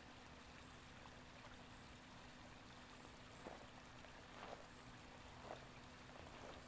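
Near silence: faint hiss with a low steady hum, and from about halfway a few faint soft footsteps on a concrete path, about one a second.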